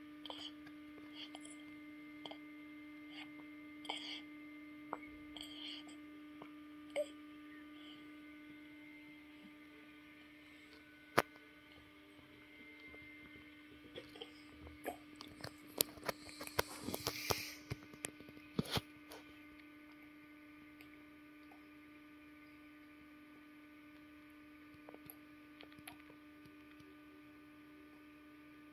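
Steady low electrical hum, with scattered soft clicks over it. There is one sharp click about eleven seconds in, then a few seconds of clicks and fabric-like rustling, the loudest part, after which only the hum remains.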